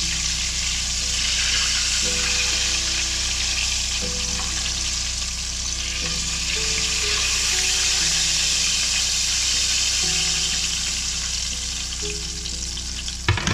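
Battered walleye pieces deep-frying in hot oil in a cast-iron pot: a steady sizzle while tongs turn the pieces. There is a brief sharp clack near the end.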